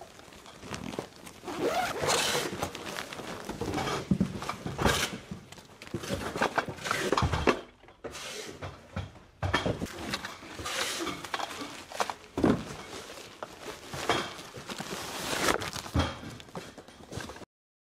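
Handling noise of nylon tent fabric and packaging: irregular rustling and crinkling with scattered knocks and clicks as the canopy is packed into its bag and boxed. The sound cuts off suddenly near the end.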